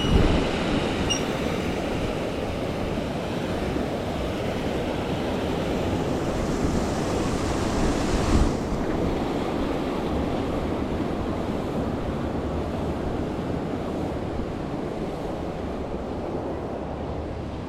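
Steady rushing of fast-flowing river water, with a knock right at the start and another about eight seconds in.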